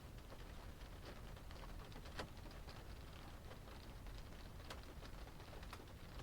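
Rain pattering on a car's roof and glass, heard from inside the car: a steady low rumble with scattered individual drop taps, a louder tap about two seconds in.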